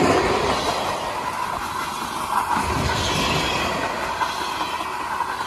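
A train's cars rolling past on the rails, the wheels clattering over the track, with a steady high tone over the rail noise.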